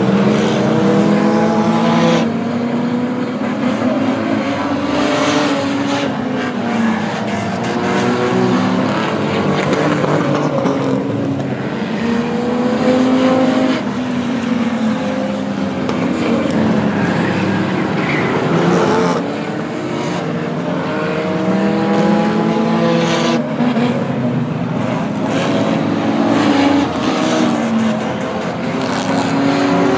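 A pack of V6 enduro race cars lapping a short oval track, many engines overlapping and rising and falling in pitch as the cars accelerate and lift through the turns.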